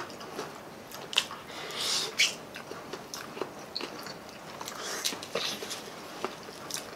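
People biting into and chewing crispy fried chicken drumsticks: irregular crunching crackles and wet chewing, with the sharpest crunches about a second and two seconds in.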